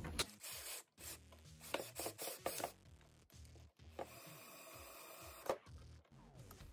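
A DeWalt 20V cordless drill slowly driving a wood screw through a caster's mounting plate into a wooden block: quiet clicks and rubbing, then a faint grinding run of the screw turning, ending in one sharper click about five and a half seconds in.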